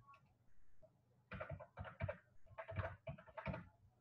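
Typing on a computer keyboard: a run of about ten uneven keystrokes, starting about a second in and running until near the end, as a word is typed out.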